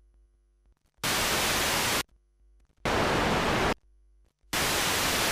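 White noise from a Eurorack noise module's white-noise output: an even, full-range hiss, bright right up through the highs. It comes in three bursts of about a second each, switched on and off with short silences between them, starting about a second in.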